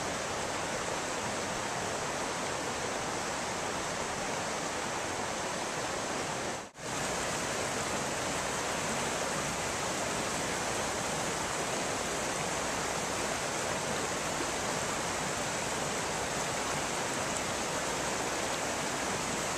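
Rushing mountain creek: a steady rush of whitewater tumbling over rocks. It cuts out for a moment about seven seconds in.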